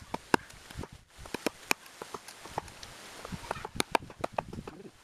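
Machete blade chopping into the trunk of a betel nut (areca palm), quick irregular strikes about two to three a second as a notch is hacked out of the wood.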